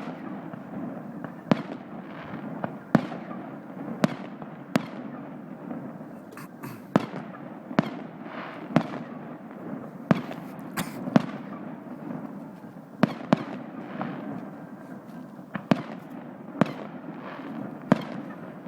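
Fireworks display: aerial shells bursting in a series of sharp bangs, roughly one a second and sometimes two in quick succession, each trailing off in a fading echo over a continuous background rumble.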